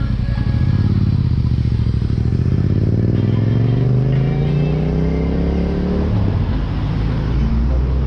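Motorcycle engine accelerating, its pitch rising steadily for several seconds, then dropping sharply about six seconds in and pulling again.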